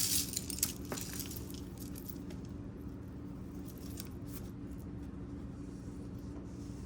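A few light clinks and rustles of costume jewelry being handled in the first second, then mostly a steady low hum.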